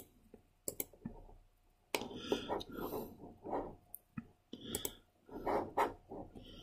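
Computer mouse clicking, several sharp clicks at the start and a few more scattered through, with low, indistinct mumbling from the person at the computer in the middle.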